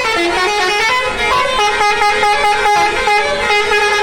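Indonesian bus 'telolet' musical air horn playing a tune: a continuous run of short notes stepping up and down in pitch, with no pause.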